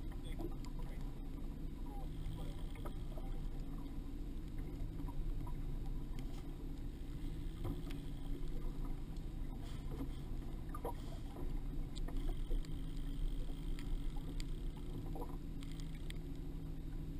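A fishing boat on choppy water: a steady low rumble with a faint hum, and small scattered splashes and ticks.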